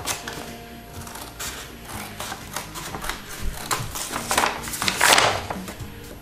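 Scissors snipping through a large sheet of paper in a run of short sharp clicks, with the paper rustling loudly as the sheet is lifted and turned about four to five seconds in.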